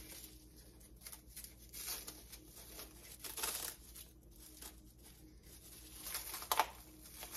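Clear plastic bag crinkling and rustling in short, uneven bouts as it is handled and pulled open, with a sharper crackle about six and a half seconds in.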